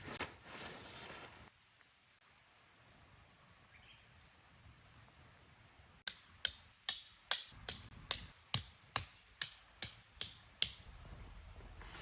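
About a dozen sharp knocks struck in an even rhythm, roughly two and a half a second, starting about halfway through and stopping near the end, each with a short ringing decay.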